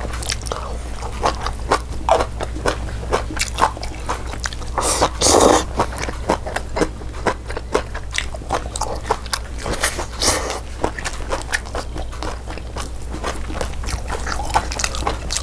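A person chewing and biting food close to the microphone: a quick run of small clicks and crunches, louder around five and ten seconds in, over a steady low hum.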